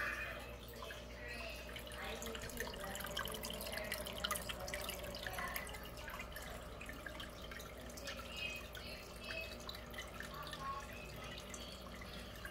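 Water dripping and trickling in a turtle aquarium: irregular small drips and plops throughout, over a low steady hum.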